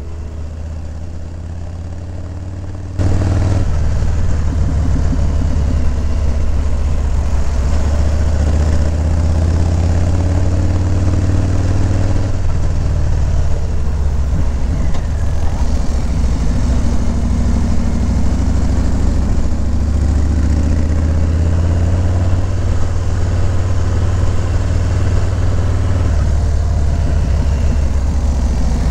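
Harley-Davidson Low Rider S motorcycle's V-twin engine running steadily and low-pitched while riding. It gets suddenly much louder about three seconds in.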